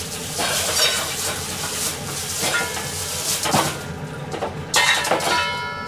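Kitchen clatter: metal pots, bowls and utensils knocking and scraping a few times, with a louder clank near the end that leaves a brief metallic ring.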